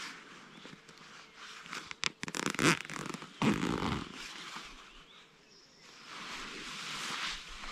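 Nylon sleeping bag rustling and scraping close by as the sleeper shifts inside it and pulls the hood around his head, loudest about two to four seconds in.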